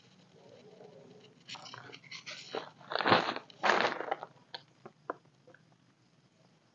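Plastic tarp groundsheet crinkling and crunching in a few loud bursts as a person shifts and turns on it, with a few sharp clicks afterwards.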